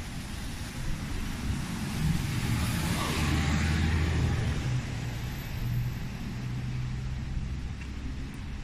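A car driving past close by, its engine and tyre noise swelling to a peak about three to four seconds in and then fading, over steady street traffic.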